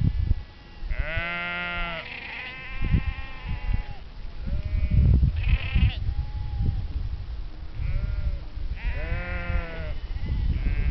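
Sheep bleating, about six calls at different pitches from several animals, some overlapping, each lasting up to a couple of seconds.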